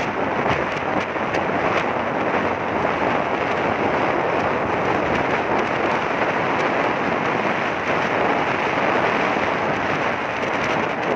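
Steady rush of wind buffeting the microphone of a phone carried on a moving motorcycle, with road and riding noise underneath.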